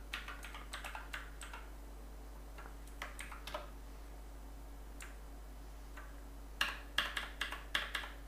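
Computer keyboard keystrokes: scattered key presses, a quieter stretch with only a few single taps, then a quick, louder run of keystrokes near the end.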